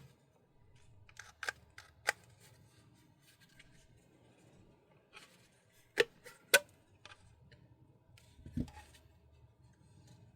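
Sharp clicks of hard plastic parts, two light ones and then two loud ones, followed by a duller knock near the end, as an airsoft rifle stock is handled and adjusted.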